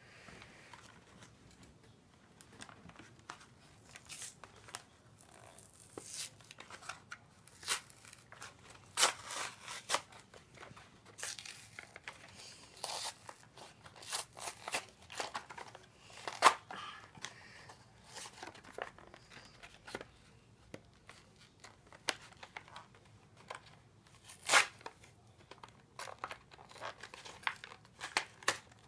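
Cardboard blister-card toy packaging being torn open by hand: irregular sharp rips and crinkles with short quiet gaps between them, the loudest rips about sixteen and twenty-four seconds in.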